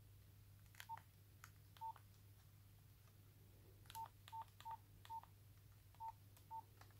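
Nokia 3410 keypad tones: eight short beeps at one pitch, each with the soft click of a key press, as the scroll keys step through the phone's menu, over a faint steady low hum.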